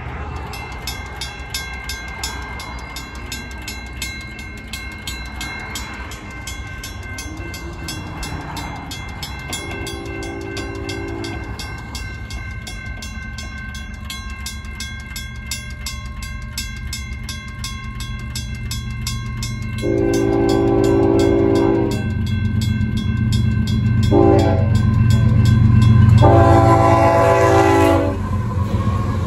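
Railroad crossing bells, a WCH mechanical bell and a General Signals electronic bell, ringing rapidly and steadily. An approaching Union Pacific freight locomotive sounds its horn in the crossing signal of long, long, short, long, the first blast about ten seconds in. The diesel rumble grows as the locomotives reach the crossing near the end.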